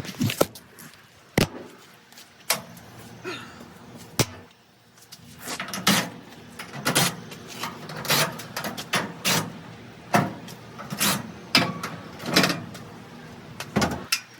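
Clicks, knocks and rattles of metal dryer parts and panels being handled and taken apart. Sharp single clicks come first, then after a short lull a run of louder knocks and rattles about once a second.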